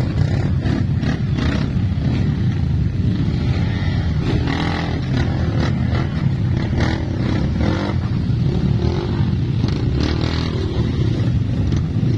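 Trail motorcycle engine running steadily over rough ground, with scattered short knocks and clatter.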